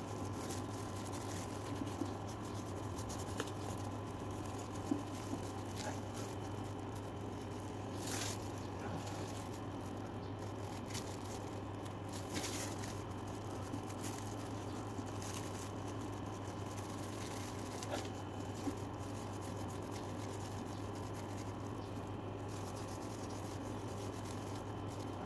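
Soft, scattered rubbing and light taps of paint being worked onto a leather bag, over a steady low hum.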